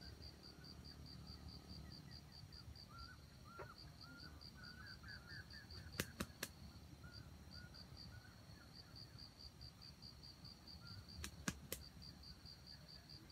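Red junglefowl rooster beating its wings: three sharp claps about six seconds in and three more near the end. Behind them an insect chirps steadily at about five pulses a second, with faint soft bird chirps.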